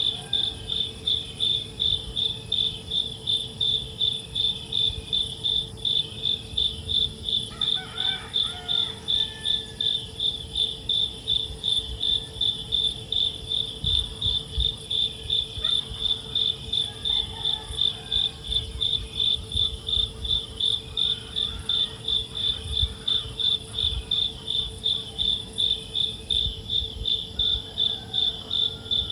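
An insect, cricket-like, chirping in an even rhythm of about two high-pitched pulses a second, over a steady low hum.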